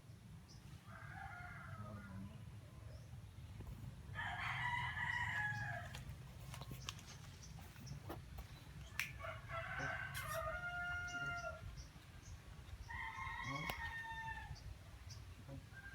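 Rooster crowing repeatedly: four drawn-out crows, the loudest about four seconds in, over a low steady rumble.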